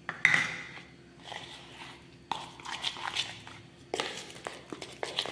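A spoon stirring and scraping a thick paste of powdered sugar and milk in a plastic bowl, in a run of quick scrapes in the second half. There is a sharp knock about a quarter second in.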